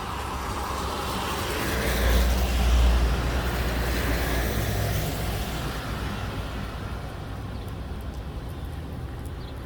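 A road vehicle drives past: tyre hiss and a low engine rumble swell to their loudest a couple of seconds in, then fade away.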